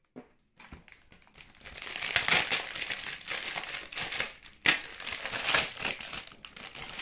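Packaging being opened and handled: crinkling and rustling that starts after a quiet first second or so, with one sharp, loud crackle about two thirds through.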